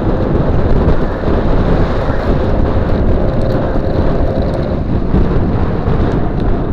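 Wind buffeting the microphone and tyre rumble from a custom dual-motor 48 V electric scooter riding on a paved path, with a faint steady whine through the middle.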